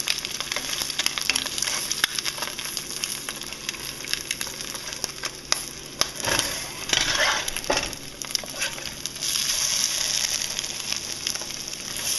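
Eggs frying in a pan, a steady sizzle, with a spatula clicking and scraping against the pan, loudest about halfway through.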